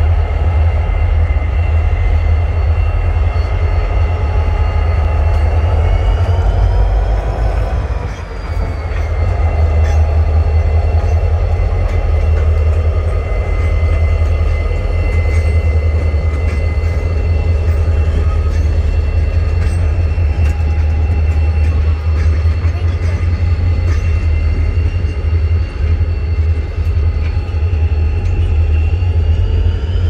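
Norfolk Southern diesel switching locomotives running, a continuous heavy low engine rumble with a steady high whine. The pitch of the whine rises and falls about seven seconds in, and again near the end.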